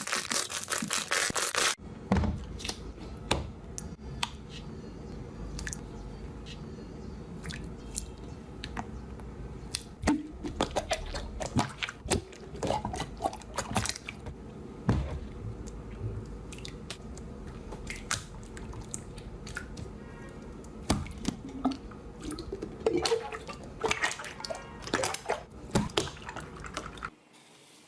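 Slime being squeezed and poked: wet, sticky clicks and pops at irregular intervals over a low steady hum, with denser crackling in the first two seconds.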